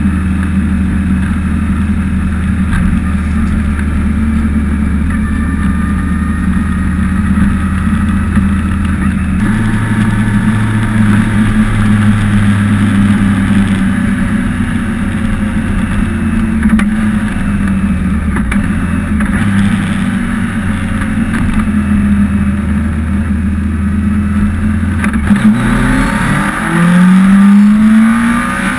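2002 BMW K1200RS inline-four engine running through its modified stock muffler, with the packing removed, heard from the rider's seat at a steady cruise. The engine note shifts abruptly about a third of the way in and again later. Near the end the engine revs up with a loud rising pitch.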